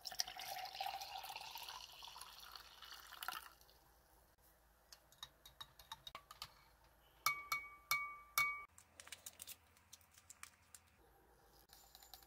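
Cold water poured from a jug into a drinking glass, the pitch rising as it fills, stopping about three and a half seconds in. Then a spoon stirring the blackcurrant drink in the glass: light knocks, with several ringing clinks against the glass about seven to eight and a half seconds in.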